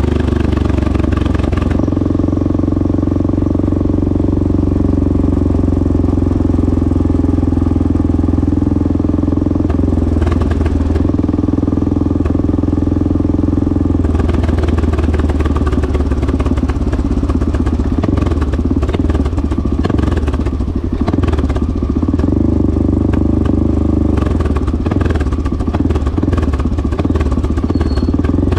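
1986 Honda XL600R's single-cylinder four-stroke engine running loud and mostly steady through a Devil stainless-steel exhaust, its note turning rougher about halfway through.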